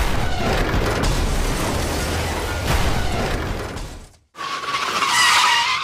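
Car crash sound effect for an overturned car: a long, noisy crashing sound for about four seconds that cuts off abruptly. It is followed by a shorter sound with a wavering, high pitch near the end.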